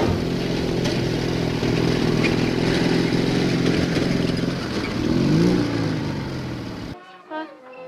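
Motor vehicle engine running steadily, its pitch rising and then falling about five seconds in. It cuts off abruptly near the end.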